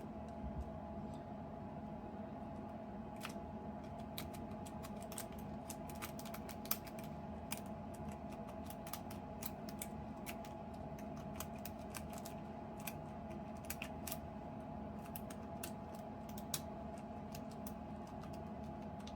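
A Covert Instruments FNG lock-pick rake working the pins of an ABUS Titalium 64TI/40 padlock under heavier tension, making rapid, irregular small metallic clicks that start about three seconds in.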